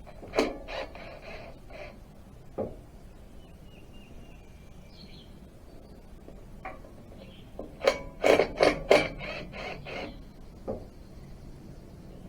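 Hand tools and metal engine parts knocking and clattering as an engine is taken apart, in two bursts: a few knocks right at the start, then a quick run of about half a dozen clanks around the middle to late part, with single knocks in between.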